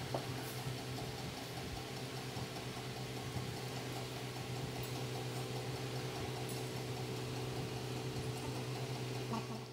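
Steady, even hum of the houseboat's engine, with a few faint clinks of a ladle against steel serving pots near the start and the end.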